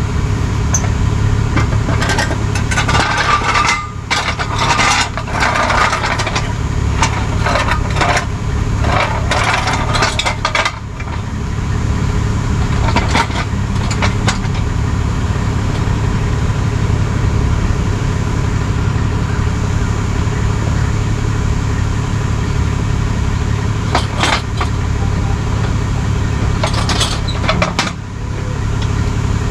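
Tow truck engine idling steadily, with bursts of metallic clanking and rattling over the first ten seconds or so and a few more knocks later on.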